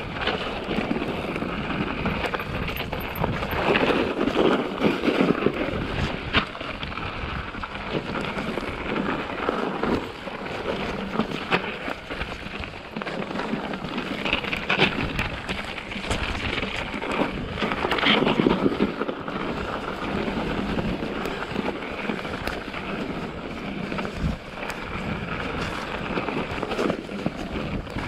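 Mountain bike rolling fast down a snowy, rooty forest trail: a steady rumble of tyres over snow, ice and roots, with frequent knocks and rattles from the bike and wind on the microphone. It grows louder over rough patches a few seconds in and again past the middle.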